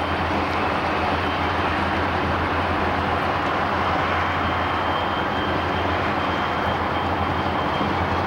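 Steady rumble and wind rush of travel at speed, heard through the open window of a moving car.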